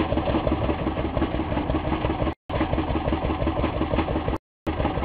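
Boat engine running steadily at low trolling speed, with a fast even throb. The sound drops out completely for a moment twice, about two and a half seconds in and again near the end.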